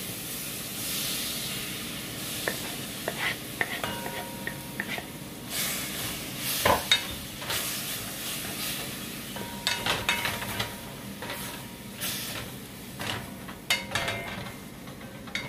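Chopped lobster meat sizzling as it goes into a hot pot of olive oil and minced garlic and is stirred with a wooden spoon, with scattered knocks and scrapes of the spoon against the metal pot.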